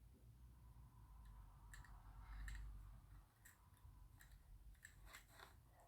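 Near silence over a low hum, with a few faint, sharp metallic clicks of small hand tools on a pocket watch movement's parts.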